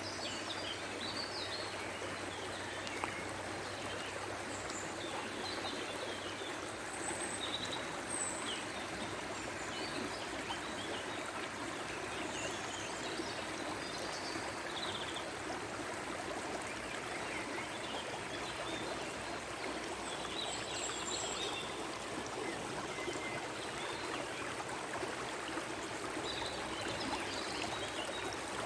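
A stream running steadily, with small birds chirping now and then over the water.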